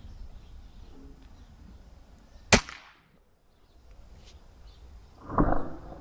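Moderated Vixen .22 PCP air rifle firing a single shot: one sharp, short crack with a brief tail, about halfway through. Near the end comes a second, duller sound of about half a second.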